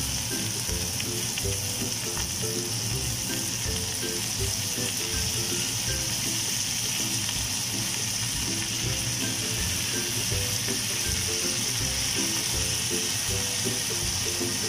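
Minced pork sizzling steadily as it fries in a wok, a constant hiss. Background music with short plucked-sounding notes plays along.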